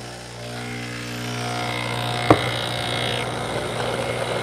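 Breville Barista Express espresso machine's vibration pump humming steadily, with water hissing through it for the first three seconds or so. A single sharp clink about two seconds in.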